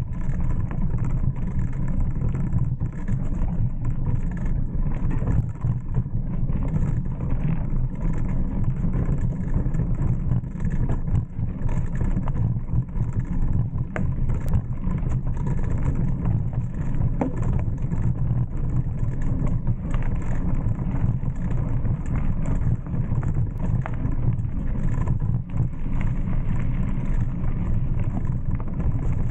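Wind buffeting the microphone of a camera riding along on a mountain bike, a steady low rumble, mixed with the bike's tyres rolling over a dirt singletrack trail.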